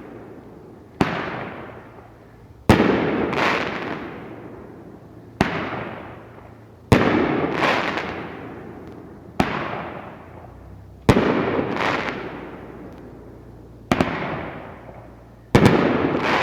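A 500-gram, 9-shot crackle fireworks cake firing. There are four pairs of sharp reports: a launch report, then about a second and a half later a louder break. Each break trails off into crackling.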